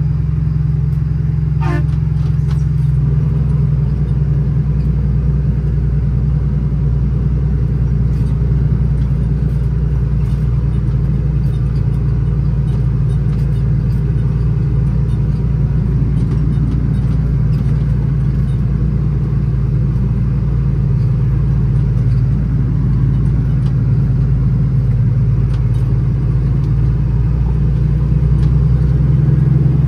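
Cummins ISX diesel engine of an International ProStar truck running steadily: a continuous low drone, swelling slightly near the end.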